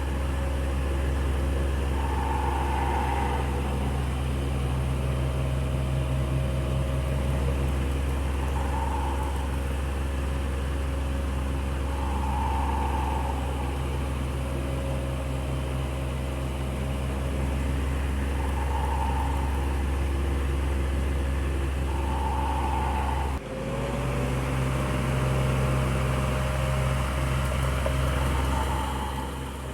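Electric fan running with a steady low hum, a brighter whirr swelling up every few seconds, and a brief break about 23 seconds in.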